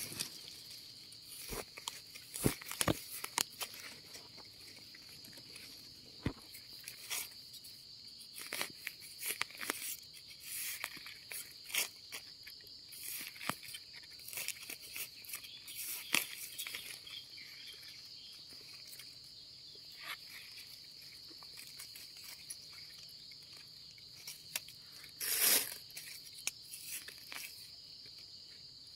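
A steady, high-pitched insect chorus runs under scattered crackles and rustles of dry leaf litter and twigs being handled while mushrooms are picked from the soil. A louder rustle comes near the end.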